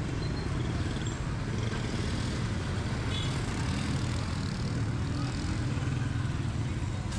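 Busy street ambience dominated by the steady low engine noise of motor traffic running along the street, with a brief faint high tone about three seconds in.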